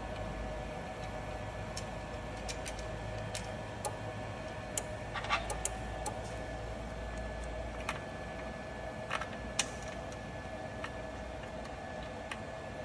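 Steady machine hum with scattered light clicks and taps of work on the hydraulic paper cutter during a blade change, a cluster of them about the middle and two more near the end.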